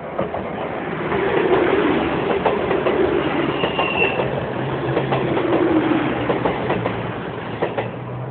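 CrossCountry Class 221 Super Voyager diesel-electric multiple unit passing close at speed: its underfloor diesel engines drone steadily under a rush of wheel noise. The wheels click irregularly over rail joints. The sound swells about a second in as the cars go by.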